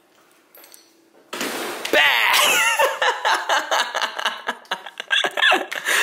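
A woman laughing and shrieking in high, swooping bursts, starting suddenly about a second and a half in.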